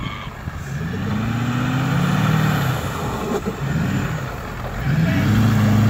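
Lifted heavy-duty pickup truck's engine revving hard in three rising and falling surges as the truck struggles for grip climbing a slushy snow hill.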